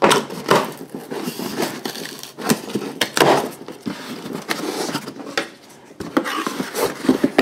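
Cardboard shipping box being opened by hand: its flaps pulled up and torn open, with irregular scraping, tearing and rustling of cardboard.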